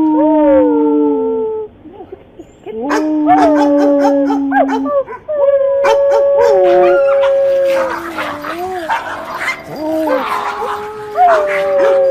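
Dogs howling: long drawn-out howls that slide in pitch at their starts and ends, with two voices overlapping at times and a brief pause about two seconds in.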